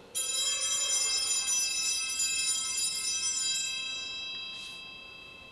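Altar bells rung at the elevation of the host after the consecration: a cluster of small bright bells shaken for about three seconds, then left to ring out and fade.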